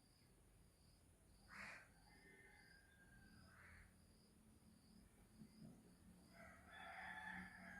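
Near silence with faint background insect chirping, evenly repeated about twice a second, and a couple of brief faint rustles.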